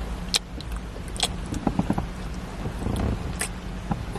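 Kissing on a neck: a few short wet lip smacks over the steady low hum inside a car cabin.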